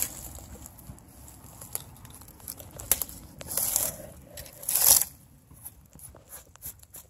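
Dry grass and moss rustling and crackling as a hand pulls and brushes at them around a rock, in irregular bursts with the loudest rustle about five seconds in.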